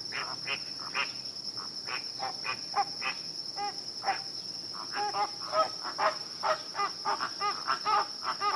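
Rapid series of short pitched animal calls, a few each second, growing busier about halfway through, over a steady high insect drone.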